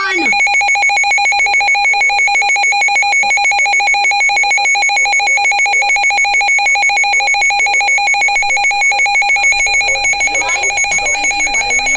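Emergency Alert System attention signal: a loud, steady electronic alert tone with a fast, even pulse, announcing that a severe thunderstorm warning is being broadcast. Voices talk over it near the end.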